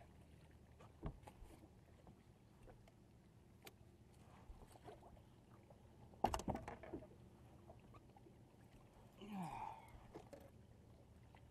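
Faint water lapping against a bass boat's hull, with a single knock about a second in and a short burst of splashing and knocks about six seconds in as a big largemouth bass, about six pounds, is grabbed at the boat's side and lifted aboard by hand. A short sound that bends in pitch follows near the end.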